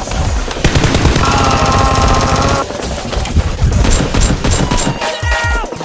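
Rapid automatic gunfire, a machine-gun sound effect, in a dense burst of about two seconds and then scattered shots, over background music.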